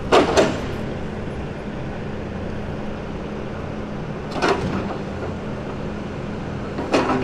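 Diesel engine of a log truck running steadily as the truck creeps forward with its loaded log trailer. Three short, loud rattles come just after the start, about four and a half seconds in, and near the end.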